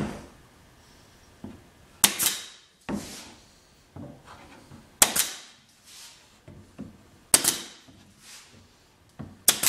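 Pneumatic pin nailer firing pins into oak crown molding: a sharp shot about every two to three seconds, each with a short hissing tail, and softer knocks in between as the tool is moved and set against the molding.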